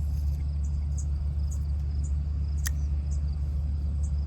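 Steady low rumble outdoors, with an insect chirping high and short about twice a second, and one sharp click a little past the middle.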